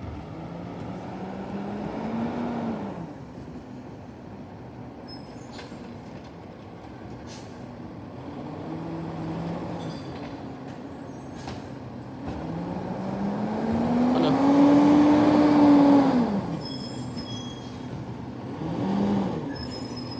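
Recycling truck's diesel engine revving up and dropping back four times, the longest and loudest rev about three-quarters of the way through. A few sharp knocks come between the revs.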